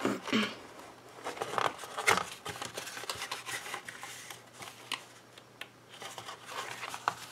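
Kraft cardboard gift box being handled and folded together, with rustling and a few sharp clicks and crackles as the backing film is peeled from its glue strips and the sides are pressed into place.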